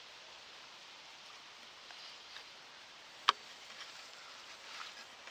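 Quiet outdoor background hiss, with one sharp click a little past three seconds in and a few fainter ticks around it.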